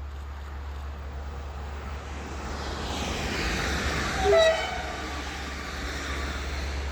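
A train approaching and passing on the line, its running noise swelling, with a short horn blast about four seconds in that is the loudest moment.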